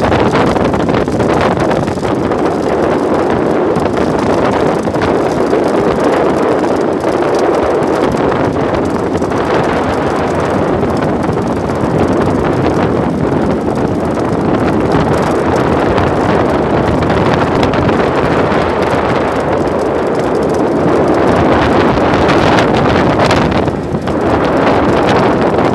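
Wind buffeting the microphone over the steady running of a small wooden boat under power, with a brief dip near the end.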